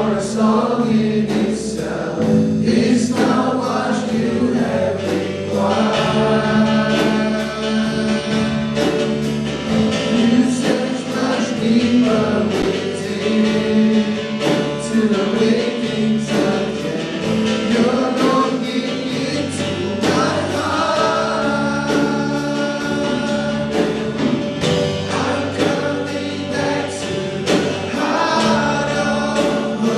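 A gospel song played with a choir singing over instrumental accompaniment and a steady beat.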